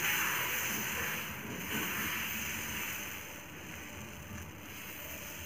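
Lentil dosa batter sizzling on a hot cast-iron dosa griddle as a ladle spreads it in circles. The hiss is strongest for the first couple of seconds and slowly dies down.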